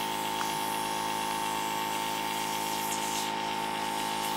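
Dinair airbrush makeup compressor running with a steady hum, with the hiss of cleaning solution being sprayed out through the airbrush into a paper towel to flush out old foundation.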